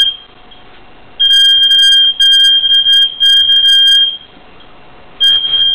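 Apartment building fire alarm sounding a loud, shrill, high tone in three long beeps with only short breaks between them. A pause of about a second follows, and the alarm starts again near the end. The speaker calls it excruciating.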